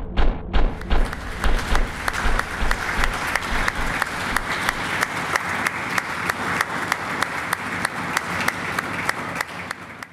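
A few deep thumps fade out in the first second, then an audience applauds, with sharp claps standing out in a steady run. The sound cuts off abruptly at the end.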